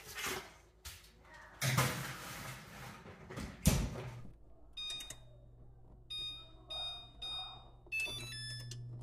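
Electric range's touch control panel beeping as its keys are pressed to set a convection bake, a series of short electronic beeps from about halfway through, with a low steady hum coming on alongside. Before that, a handling noise and a single thud.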